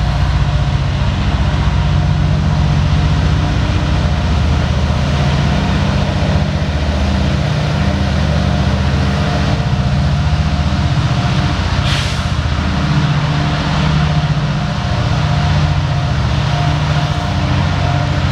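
Coal train rolling past: a loud, steady low rumble with a layered drone, and two short high-pitched sounds, about twelve seconds in and again near the end.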